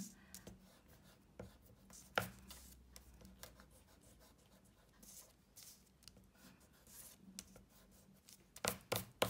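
Eraser rubbing back and forth over patterned cardstock to rub out pencil lines: faint, quick scrubbing strokes. A sharp tap comes about two seconds in and a few louder knocks near the end.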